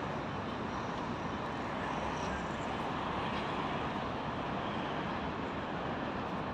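Steady road traffic noise from a nearby street: an even hum of passing cars.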